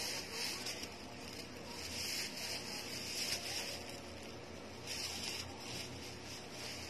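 Soft rustling and rubbing that comes and goes as plush stuffed toys are handled, over a low background hiss.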